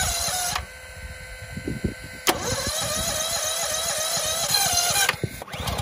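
Gas pressure washer running on its small gasoline engine, with two spells of spraying from the wand. The spray cuts off about half a second in and starts again with a sharp click a little over two seconds in, the engine sounding under load, before it stops near the end.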